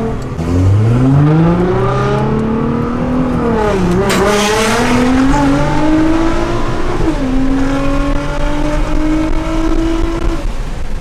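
Car engine accelerating hard, its pitch climbing through the revs and dropping at gear changes about four and seven seconds in.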